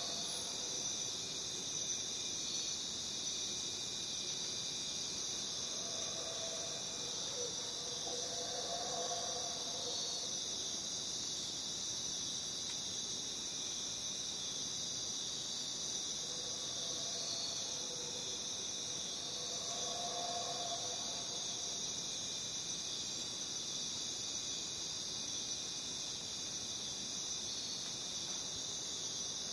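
Dense chorus of jungle crickets, a steady high-pitched trilling that never lets up. Fainter, lower calls rise and fade a few times beneath it.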